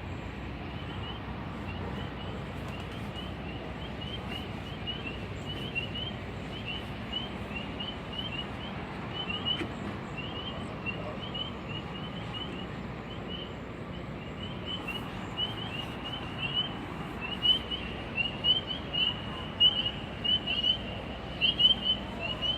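Recorded chorus of coquí frogs, many short, high chirps each second, played from a park sound display's outdoor speaker over a steady hum of background noise. The chirping grows louder over the last several seconds.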